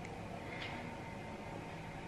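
Quiet room tone with a faint steady hum; no distinct sound.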